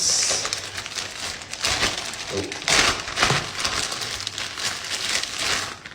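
Dry uncooked rice rustling and pattering with crinkling, in irregular bursts, as it is handled and dug through by hand to get the phone out.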